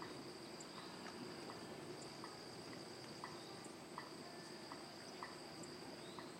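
Faint rural ambience: insects trilling steadily at a high pitch, with soft short ticks recurring every half second or so.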